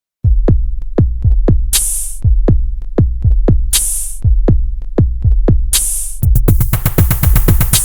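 Electronic music with a drum-machine beat: deep kick drums that drop in pitch, a hissy swell about every two seconds, and a fast roll of hits from about three-quarters of the way in.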